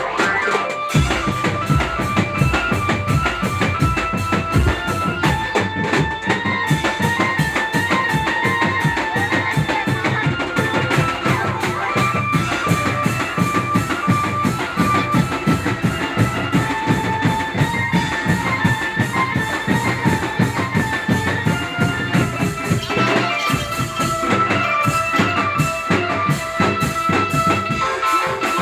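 Dramben drum band playing: fast, steady drumming with a bass drum, and a melody stepping above it.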